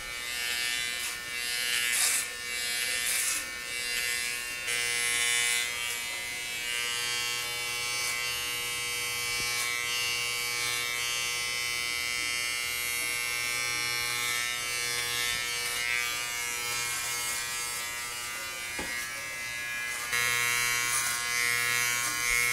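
Corded electric hair clippers buzzing steadily as they cut short hair close to the scalp, the buzz growing louder about five seconds in and again near the end.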